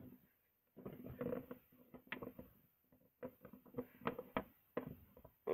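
Small plastic toy figurines being handled and set down on a toy play set: irregular light taps and clicks, some in quick clusters.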